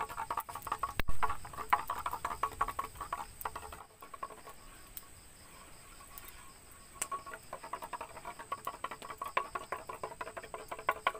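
A knife scraping and shaving along the opening of a green bamboo tube: fast gritty ticking strokes that make the hollow tube ring at a few fixed pitches, with one sharp crack about a second in. The scraping pauses for a few seconds in the middle and then starts again.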